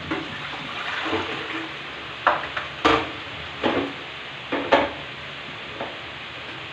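Chopped meat sizzling in a frying pan, with a handful of sharp clanks of pan and utensil between about two and five seconds in as the pan is stirred and lifted off the burner and set back, the loudest a little before the middle.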